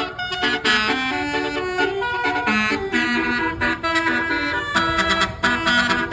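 Basuri musical bus horn playing a tune of short held notes that step up and down in pitch.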